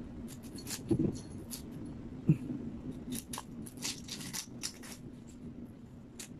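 Small kitchen knife slicing an onion held in the hand: irregular runs of short, crisp snicks as the blade cuts through the layers, in two flurries with a pause between.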